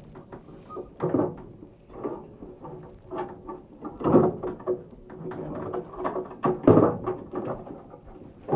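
Irregular clunks and rattles of furnace parts being handled during disassembly, over a faint steady hum.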